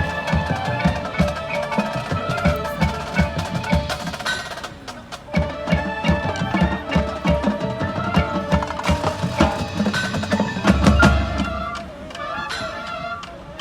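High school marching band playing its show music, with mallet percussion and drums striking quickly over sustained tones. A heavy low hit lands about eleven seconds in.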